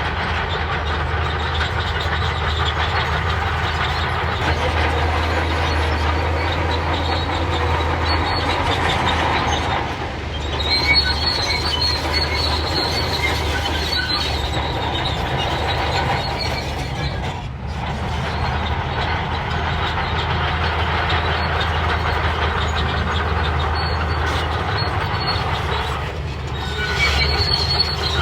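Crawler bulldozer working in sand: its diesel engine runs steadily while the steel tracks clank and give off high metallic squeals, loudest about eleven seconds in and near the end.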